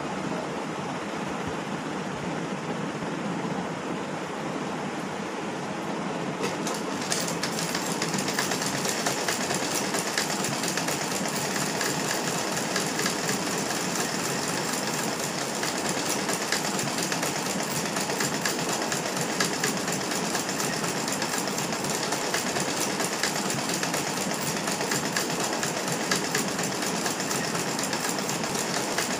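Domestic sewing machine stitching fabric, a steady rapid clatter of the needle mechanism, louder and sharper from about seven seconds in.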